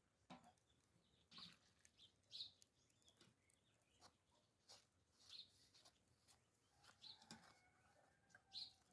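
Near silence, with a few faint short bird chirps and small clicks scattered through it.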